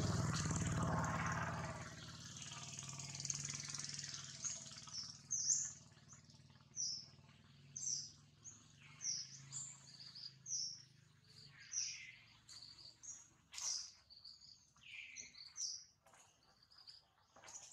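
A small bird chirping over and over, short high chirps about once a second, starting about five seconds in. Before that, a louder low rumble with hiss fades away over the first few seconds.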